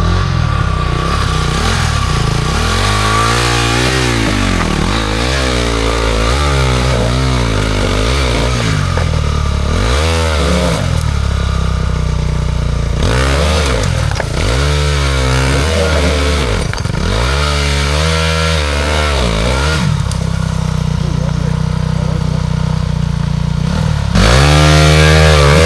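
Enduro dirt-bike engine revving up and down over and over, the throttle opened and closed every second or two under load. It gets louder near the end.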